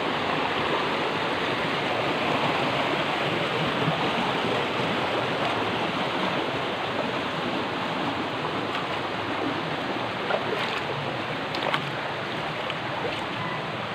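Mountain stream rushing over rocks, a steady wash of water, with a few faint clicks late on.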